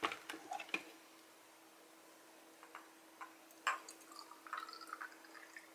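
Faint clicks and light taps of a small glass shot glass being handled, with a faint steady hum underneath.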